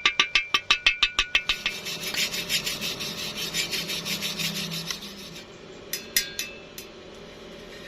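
Steel being struck quickly and evenly, about six or seven ringing taps a second, for the first second and a half. A rough scraping and rasping on metal follows for about three seconds, then a few sharp clicks about six seconds in.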